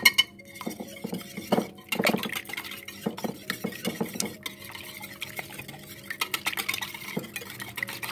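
Wire whisk beating raw eggs in a glass baking dish: quick, irregular clinking and tapping of the wires against the glass with wet sloshing, opening with a sharp clink.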